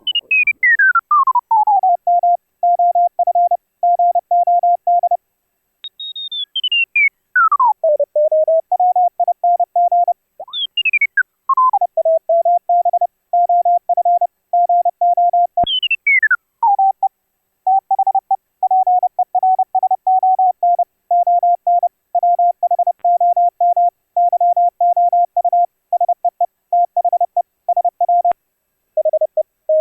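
Morse code (CW) sent as a single audio tone of about 700 Hz, keyed on and off in dots and dashes: a VLF CW signal demodulated to audio by the LYSDR software-defined radio. Four times the tone slides down from a high whistle to the keying pitch before the Morse resumes, and near the end the pitch drops slightly.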